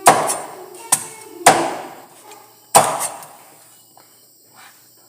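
A cleaver chopping through chicken on a cutting board: three heavy chops with a lighter knock between the first two, all within the first three seconds.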